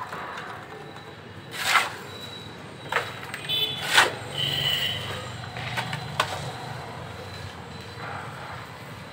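Steel shovel scraping and scooping wet cement mix off a concrete floor: a few sharp scrapes a second or so apart, the loudest about four seconds in.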